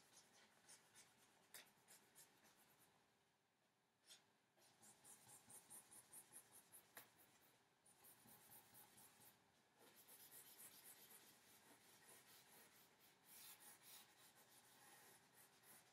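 Faint scratching of a stick of charcoal on paper in quick repeated strokes as it lays down heavy dark shading, with a brief lull about three seconds in.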